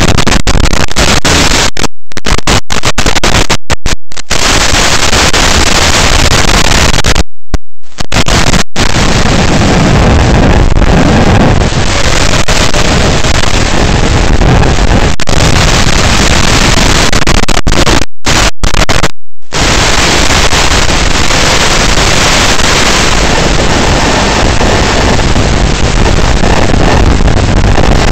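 FPV drone's electric motors and propellers with wind rushing over the onboard camera microphone, recorded as an overloaded, distorted noise. The sound cuts out briefly several times.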